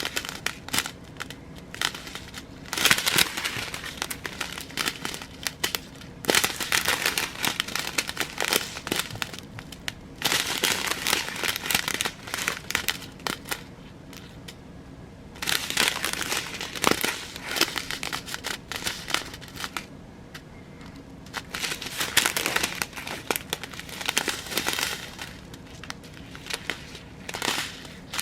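Small plastic bags of diamond-painting drills crinkling as they are handled, in spells of a second or two with quieter gaps between.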